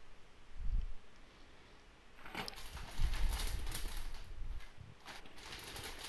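Clear plastic bag crinkling and rustling as hands pull it open, starting about two seconds in, with dull low thumps of handling.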